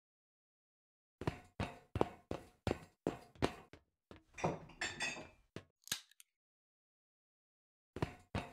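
A quick string of short knocking sounds, about three a second, with a longer, rougher sound in the middle. After a pause, two more knocks come near the end.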